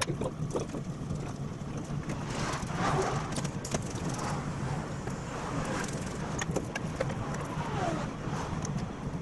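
A steady low mechanical hum, with scattered light clicks and taps from metal parts being handled on a stainless truck-bed guard.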